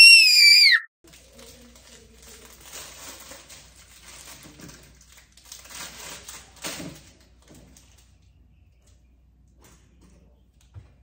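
A short, high-pitched squeal lasting about a second at the start. Then the crinkle and tear of a Pop-Tart's foil wrapper being opened, dying away after about seven seconds.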